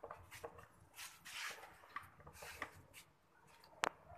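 Faint scraping, rustling and light clicks of metal parts as a dismantled Honda Spacy 110 engine unit is handled, with one sharp knock near the end.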